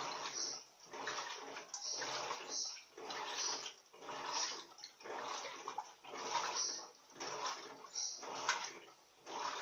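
Turbo Economia 15 kg LTD15 top-loading washer agitating a load of bath towels in water for the rinse. The water sloshes in surges about once a second as the agitator swings back and forth.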